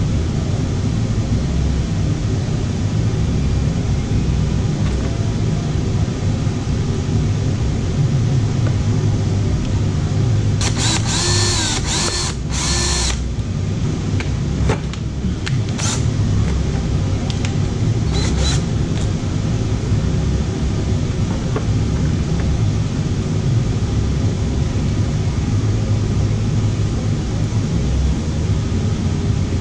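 Cordless drill running in short bursts, its motor whine rising and falling: one spurt of about two and a half seconds about a third of the way in, then a few brief ones, the last near the end. A steady low hum goes on underneath.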